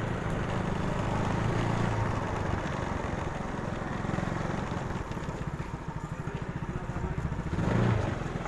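Yamaha Mio scooter's single-cylinder four-stroke engine running at low speed as it rolls in, then settling to an idle with an even putter for the last few seconds. There is a brief rise in level near the end.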